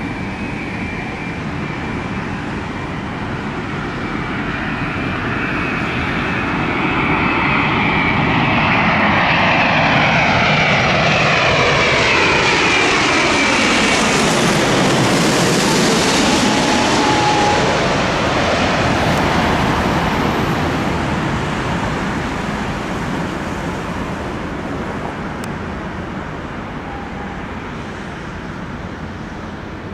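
British Airways Boeing 787 Dreamliner jet engines passing low overhead on approach. The roar and whine build to a peak about midway, the whine sliding down in pitch as the aircraft passes, then slowly fading away.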